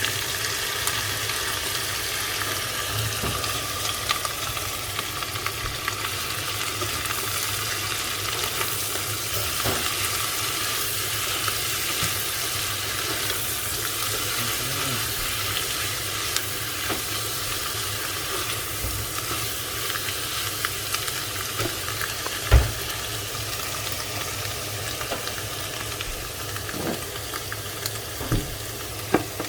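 Chanterelle mushrooms sizzling steadily as they fry in butter and onion in a pan, stirred now and then. One sharp knock about two-thirds of the way through, and a few small clicks near the end.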